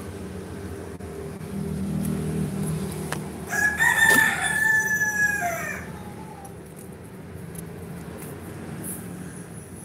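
A rooster crowing once in the distance: one call of about two and a half seconds that holds its pitch and then falls away at the end. A low rumble comes just before it.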